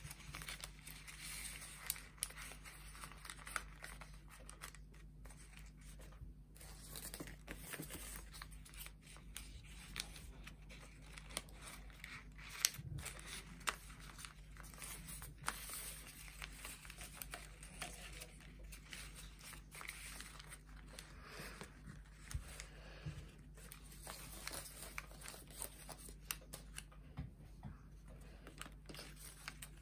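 Folded paper units of an origami kusudama rustling and crinkling as they are handled and slotted together, with many small irregular ticks and taps.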